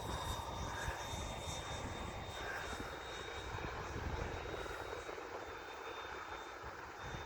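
Freewing Avanti S 80 mm electric ducted-fan jet in flight, its fan giving a steady high whine, with wind gusting on the microphone.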